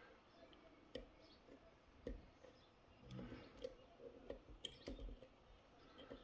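Faint, scattered clicks and light taps of small metal tools working in a Miwa E6 dimple lock.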